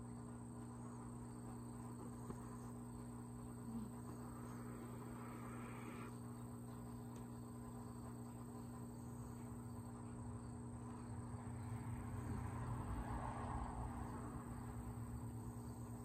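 A sleeping pet snoring faintly over a steady low hum, its breaths swelling louder near the end.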